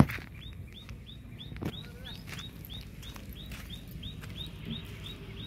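A bird calling a short, high chirp over and over, about three times a second. A sharp knock sounds right at the start, with a few lighter taps or steps scattered through.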